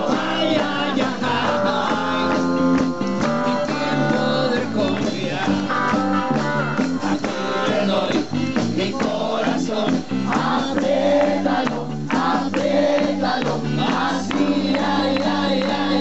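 Live rock and roll band playing, with electric and acoustic guitars, bass guitar and drums, and men singing.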